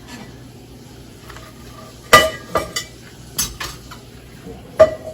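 Metal pots and pans clanking as a pot is fetched: about five sharp knocks, each with a short metallic ring, starting about two seconds in.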